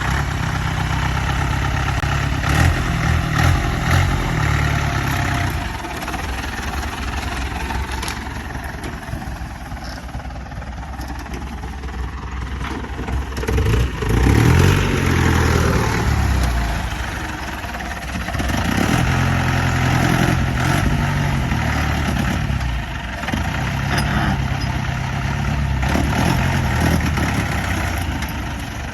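Jeep engine working off-road, revving up and easing off in several surges.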